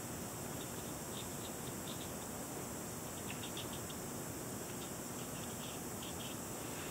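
Quiet room tone: a steady hiss with faint, scattered high-pitched ticks that come in small clusters.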